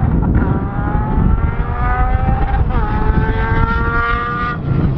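Triumph Speed Triple R's inline-three engine accelerating hard, its pitch climbing, dropping at an upshift a little under three seconds in, then climbing again before fading near the end. Heavy wind noise on the microphone.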